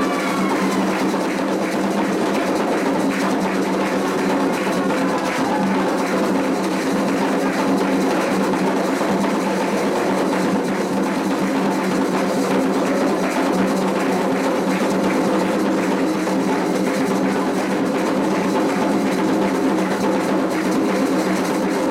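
Candomblé ritual music: atabaque hand drums played in a steady, unbroken rhythm, with sustained pitched sound over the drumming.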